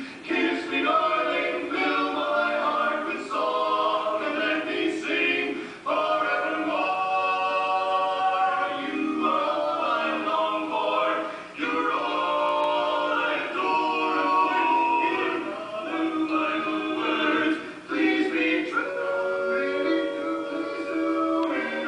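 Barbershop quartet of four male voices singing a cappella in close harmony, holding sustained chords. The singing breaks briefly between phrases about six, eleven and eighteen seconds in.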